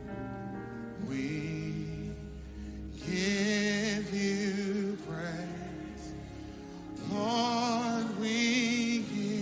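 Gospel worship singing over a sustained keyboard accompaniment: a voice sings held, wavering notes in three phrases, with softer instrumental passages between them.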